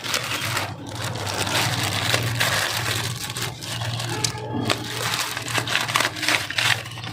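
Plastic wrapping crinkling and rustling as it is handled and pulled off a tripod, a continuous run of small crackles.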